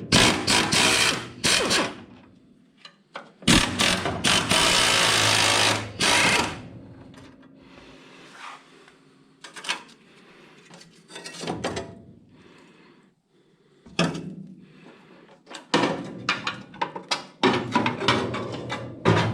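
Pneumatic air tool run in short bursts and one longer burst of about three seconds on rusted front-suspension fasteners. Clicks and knocks of metal tools and parts come between the bursts.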